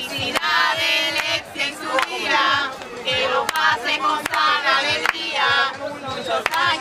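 A group of women singing together and clapping their hands.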